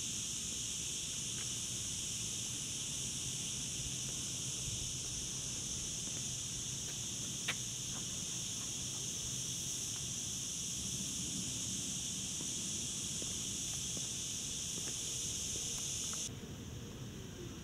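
Cicadas singing in a steady, unbroken high-pitched chorus that cuts off suddenly near the end, with a single click about halfway through.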